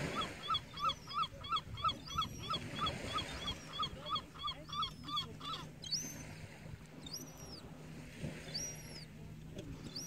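Juvenile herring gull begging from an adult: a rapid run of short, falling whining calls, about three a second, that stops about halfway through. Thin, higher calls recur about once a second.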